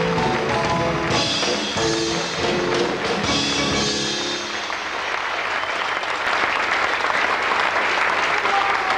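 Music plays and stops about halfway through, giving way to steady audience applause.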